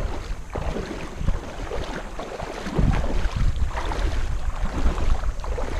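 Wind buffeting the microphone: a low, uneven rumble that swells and eases, louder about three seconds in.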